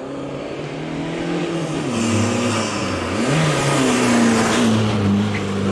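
Race car accelerating hard up a hill-climb road, its engine revving high with the pitch dropping twice at upshifts and climbing again. It grows steadily louder as it approaches and passes close by.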